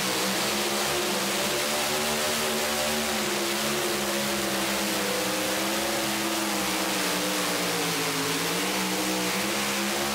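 Twin-turbocharged engine of a two-wheel-drive pulling truck running flat out under load as it drags the sled, its pitch wavering up and down as the revs rise and sag.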